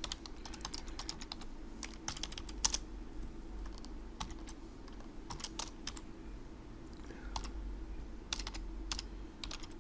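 Computer keyboard typing: irregular short runs of keystrokes with pauses between them.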